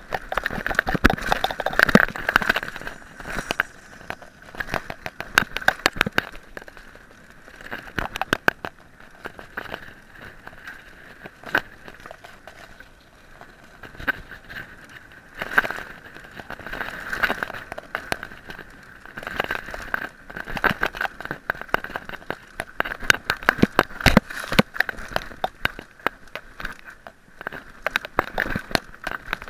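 Mountain bike ridden over a bumpy dirt trail: tyres crunching on loose dirt and gravel while the bike and camera mount rattle, with many sharp knocks as it hits bumps.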